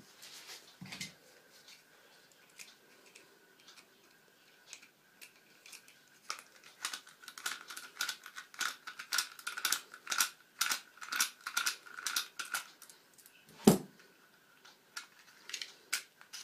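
Flat screwdriver working the grip-panel screw on an MP-654K air pistol: a quick run of small metallic clicks and scrapes, then a single louder knock near the end.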